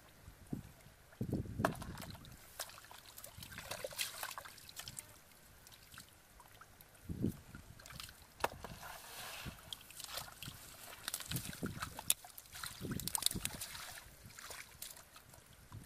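Hands sloshing and splashing through shallow muddy water in irregular bursts, with scattered small clicks and knocks.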